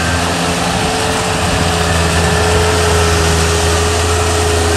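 Whiteman ride-on power trowel's engine running steadily as its blades spin on wet concrete, a constant machine drone with a steady hum.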